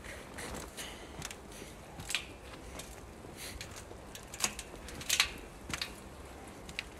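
Footsteps crunching on snow: a handful of sharp crunches at uneven intervals, the loudest about four and a half and five seconds in.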